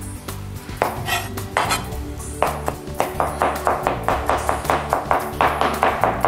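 Chef's knife mincing garlic on a plastic cutting board: a few separate knocks of the blade on the board, then a quick even run of about five a second from about halfway in.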